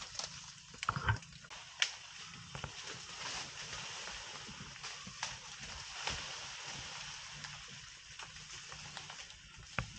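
Rustling vegetation over a steady hiss, broken by a few sharp snaps and cracks: an Asian elephant feeding on forest plants.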